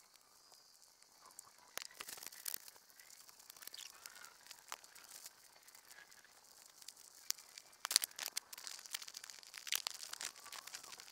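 Rustling and crinkling of clothes and a roll-top pannier bag being handled and packed inside a small nylon tent, with scattered sharp crackles, loudest about eight seconds in.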